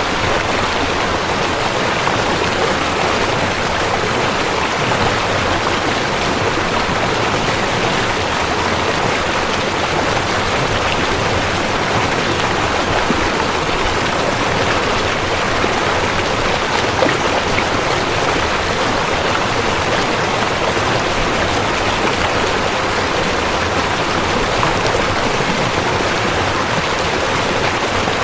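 River water rushing steadily, a continuous dense roar of flowing water.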